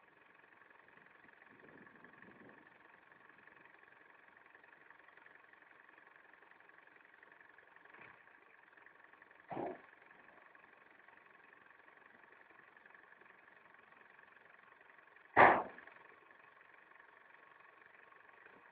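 IFA W50 truck engine idling faintly and steadily. Two short sharp knocks cut across it, one about ten seconds in and a much louder one about fifteen seconds in.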